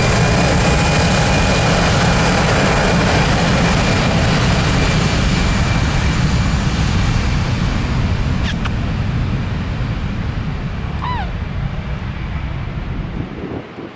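Airbus A319's twin jet engines at takeoff power: a steady rumble with a high, even whine from the fans, slowly fading as the airliner climbs away. A short falling chirp cuts through about 11 seconds in.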